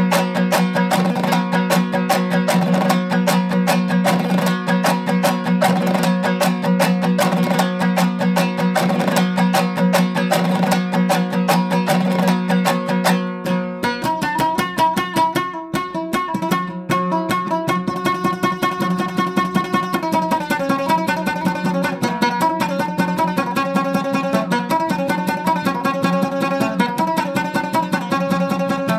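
Background music: a plucked string instrument playing quick runs of notes over a steady low drone, moving into a new passage about halfway through.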